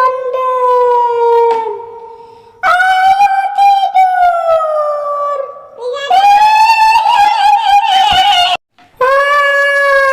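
High-pitched woman's voice wailing in long, slowly falling notes, the drawn-out crying of a kuntilanak ghost voice. Four wails follow one another, the third wavering, with a brief break just before the last.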